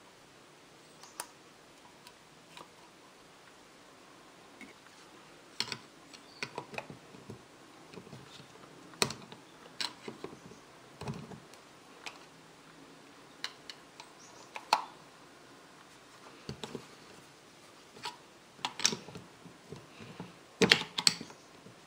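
Scattered small metal clicks, taps and scrapes from tools working a Porsche 911 SC ignition distributor: snap-ring pliers at the snap ring, then a screwdriver prying at the six-fingered part on the distributor shaft, which sits firmly fixed. The sharpest cluster of clicks comes near the end.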